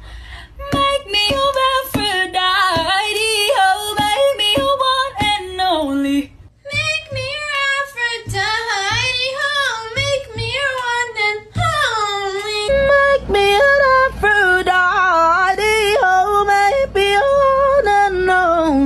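A high woman's voice singing in fast, warbling runs with heavy vibrato, breaking briefly about six seconds in and then carrying on.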